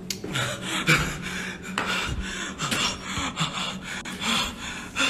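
A man breathing heavily and unevenly, a string of short noisy breaths every half-second to second.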